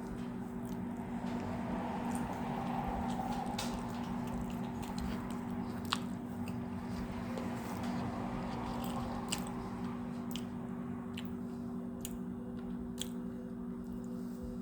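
A person biting and chewing a slice of crispy-crusted pizza, with a sharp crunch every second or two, over a steady low hum.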